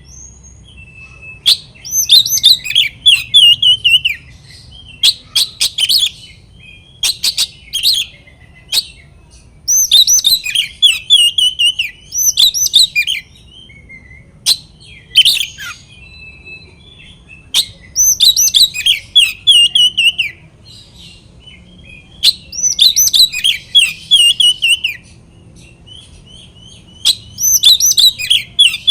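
Oriental magpie-robin (kacer) in loud, full territorial song: bursts of rapid whistled and chattering notes, many falling in pitch, mixed with sharp clicks, coming in phrases of one to three seconds with short pauses between.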